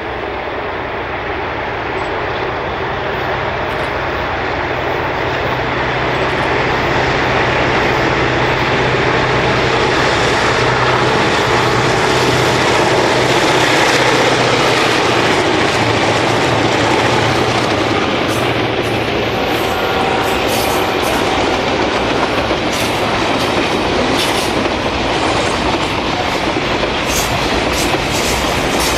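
A lashup of Clyde/EMD diesel-electric locomotives hauling a container freight train past. The engines grow louder as they approach and pass about halfway through. Then the container wagons roll by, their wheels clicking over the rail joints.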